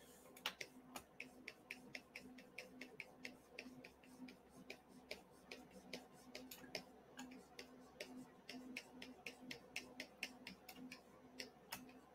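Faint, rapid light clicking, about three or four clicks a second, over a faint steady low hum.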